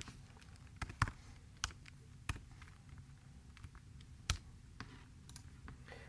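Scattered computer keyboard keystrokes and mouse clicks, irregular single clicks a fraction of a second to a second apart, over a faint steady low hum.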